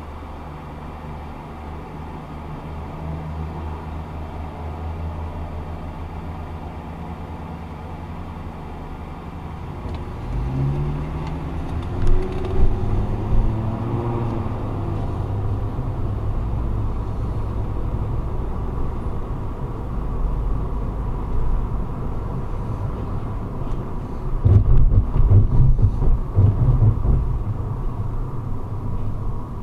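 Car idling, heard from inside the cabin, then pulling away about ten seconds in, its engine note rising as it accelerates, followed by steady engine and tyre road noise. A louder burst of low rumbling and thumps comes near the end.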